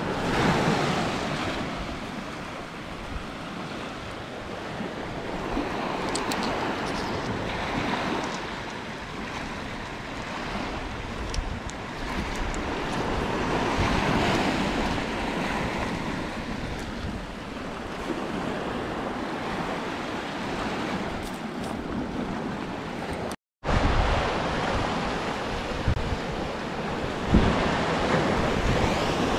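Sea waves washing onto a beach, swelling and falling every few seconds, with wind rumbling on the microphone. The sound drops out completely for a moment about three-quarters of the way through.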